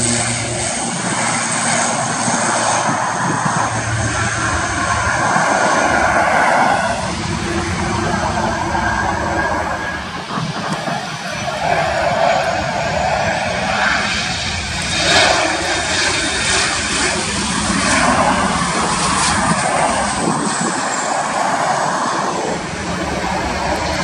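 Avro RJ85 jet airliner's four turbofan engines running with a steady rushing noise that swells and fades as it comes in to land and rolls out on the runway. In the first second, the steady low hum of an ATR 72-600 turboprop's propellers cuts off.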